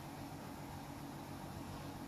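Steady background hiss with a low, even hum underneath; no distinct event.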